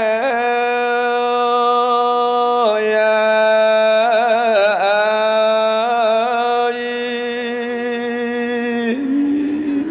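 A Buddhist monk's solo voice chanting smot, the Khmer melodic funeral chant. He holds long notes on a steady pitch, with quavering ornaments in the middle of the phrase, and the phrase ends shortly before the close.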